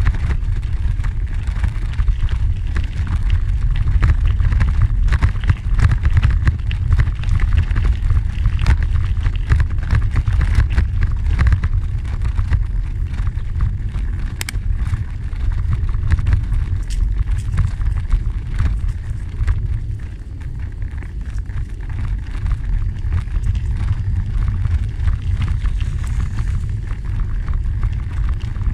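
Wind rumbling on the microphone while riding a bicycle along a gravel trail, with the tyres crunching and many small clicks and rattles from bumps over the stones.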